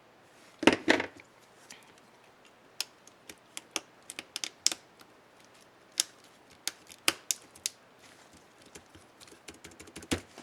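Acer Aspire One 725 laptop keyboard: two loud plastic snaps just under a second in, then a run of lighter, irregular key clicks as the replaced Shift keycap is fitted and pressed.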